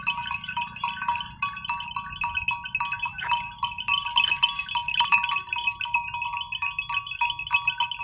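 Background music: a melody of quick, evenly spaced high notes.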